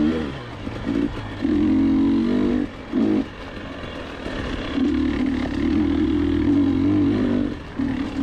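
GasGas EC300 300 cc two-stroke dirt bike engine running under the rider, revving up and falling back as the throttle is opened and rolled off over rough singletrack. It is loud for long stretches, with short drops in pitch and level about a second in, near three seconds and again near the end.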